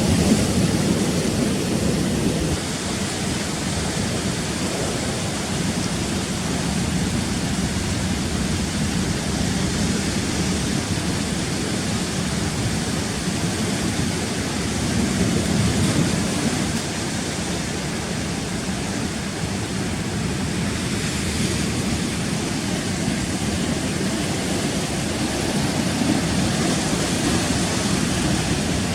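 Surf of a rough sea breaking and rushing against the rocks, a continuous noise that swells a little at the start and again about halfway through.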